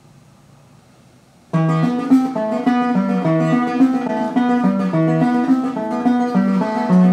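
Faint room tone, then about a second and a half in, music starts abruptly: a plucked guitar playing a steady repeating pattern of notes.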